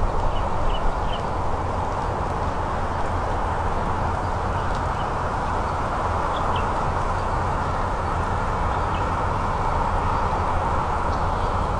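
Steady wind noise with a low rumble on the microphone, and a few faint short bird chirps, three in quick succession just after the start and a few more scattered later.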